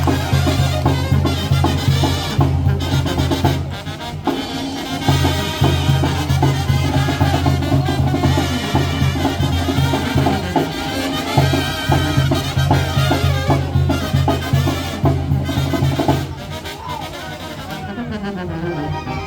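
Upbeat Latin music with brass and drums over a heavy bass line; about 16 seconds in it thins out and gets quieter.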